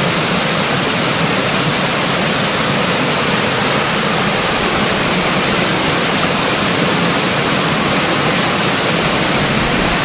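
Waterfall heard up close from its lip: the cave-fed stream pours over a rock ledge into a pool, a loud, steady rush of falling water.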